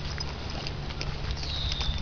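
Footsteps while walking, with scattered small clicks. A short high tone falls in pitch and then holds near the end.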